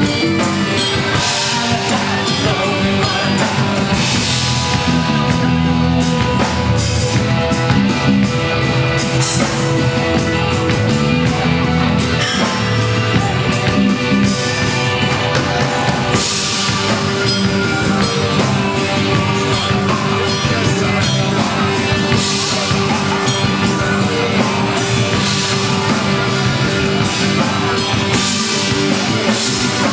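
A live rock band playing loud and steady: electric guitars, bass guitar and drum kit through stage amplifiers, with singing.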